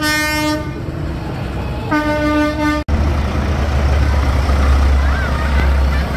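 Two steady horn toots, about a second each, the second beginning about two seconds in. After a brief dropout near three seconds, a tractor's diesel engine rumbles low and steady as it drives close past.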